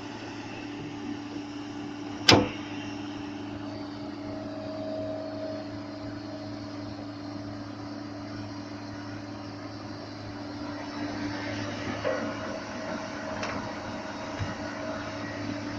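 Excavator's diesel engine running steadily, with a single sharp clack about two seconds in and a couple of fainter knocks near the end.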